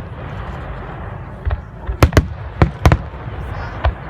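Aerial fireworks shells bursting: a low rumble, then from about a second and a half in a rapid string of sharp bangs, several close together.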